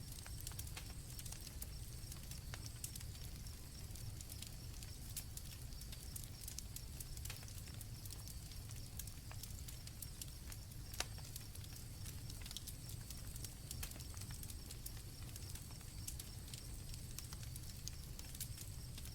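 Campfire crackling with many small pops and one sharper snap about eleven seconds in, over a low steady rumble, with crickets chirring in a steady high drone.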